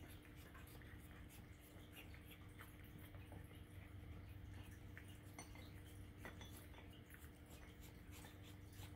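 Cat eating dry kibble: faint, irregular crunches and small clicks as it chews.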